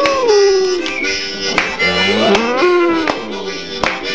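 A German shepherd-type dog howling along to reedy free-reed music. One long howl slides down at the start, and another rises, holds and falls away about two seconds in.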